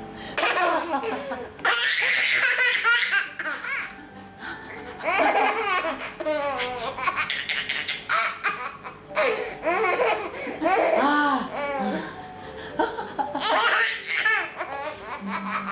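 A baby laughing in repeated bouts, set off by her mother's sneezes.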